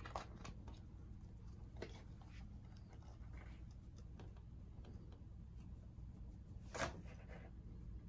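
Faint scattered scratching and tapping of a kitten scrambling in a cardboard box, with one louder scrape about seven seconds in.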